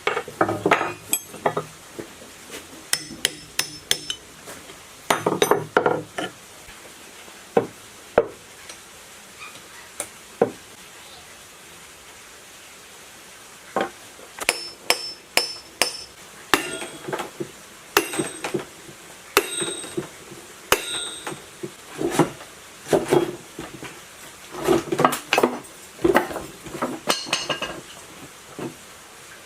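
Metal tools knocking and clinking on an old three-phase electric motor as it is taken apart: irregular clusters of sharp taps and clanks, some leaving a brief metallic ring, with a quieter spell in the middle.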